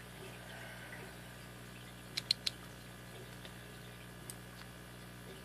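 Three quick light clicks about two seconds in, and a single fainter one later, as a lock pick and tension wrench are worked into the keyway of a Master Lock lockout padlock, over a faint steady hum.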